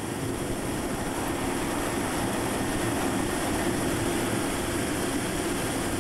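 C-17 Globemaster III's turbofan engines at takeoff power during the takeoff roll, heard from the cockpit: a steady rushing jet noise with a low hum, rising slightly at first and cutting off abruptly at the end.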